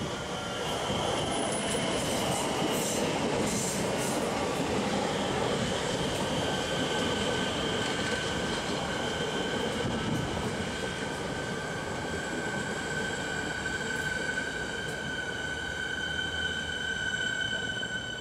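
Siemens electric suburban train (EMU) running past on the rails with a steady rumble. A steady high-pitched squeal comes in about six seconds in and holds while the cars go by. The sound falls away near the end as the last car clears.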